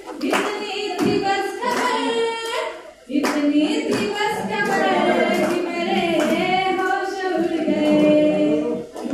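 A woman singing into a microphone, holding long notes, with a short break between phrases about three seconds in. Hand claps keep time behind the voice.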